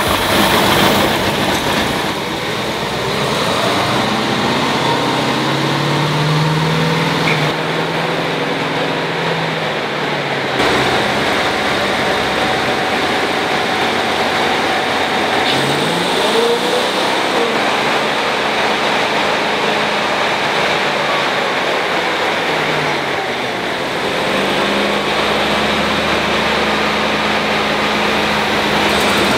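Ford V8 engine running on a transmission dyno, driving a 4R70W automatic transmission. Its revs rise and fall several times, with quick climbs in engine speed about halfway through and again at the end.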